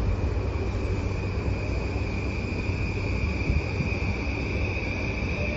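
Yamanote Line electric commuter train running, heard from inside the car: a steady low rumble from wheels and track with a steady high motor whine, and a second, lower whine that starts rising in pitch near the end.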